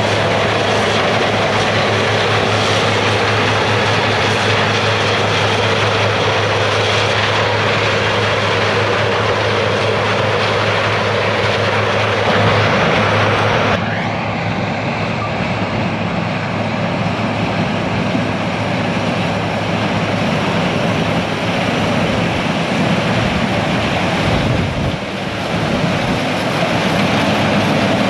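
Heavy diesel harvest machinery running steadily in a corn field, a constant engine drone with a low hum under it. The sound changes abruptly about halfway through and dips briefly near the end.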